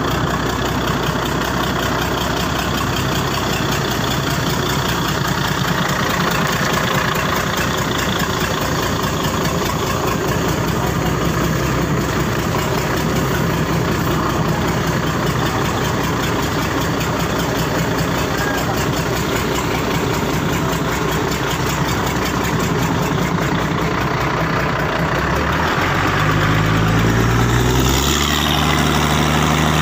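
Mitsubishi 6D16 inline-six diesel engine running steadily, then picking up speed near the end as it is given more throttle.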